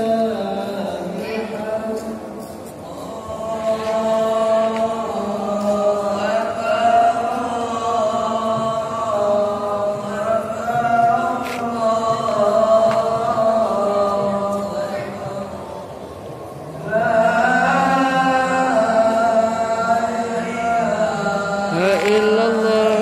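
Voices singing a melodic chant in long held phrases, breaking off briefly twice, about two seconds in and again about sixteen seconds in.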